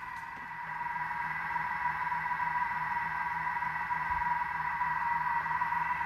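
Vorwerk Thermomix running at low stirring speed while heating soup at 95 °C: a steady motor whine with a faint low hum, growing a little louder in the first second.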